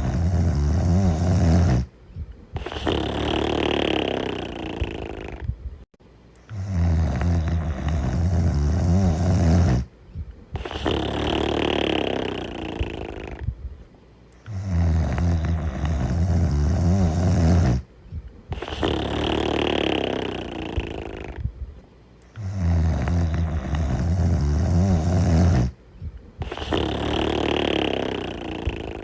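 Cartoon character snoring in a steady, repeating cycle. A low rasping snore is followed by a short pause, then a breathier snore with a thin whistle in it, and the cycle comes round about every eight seconds, the same each time like a looped sound effect.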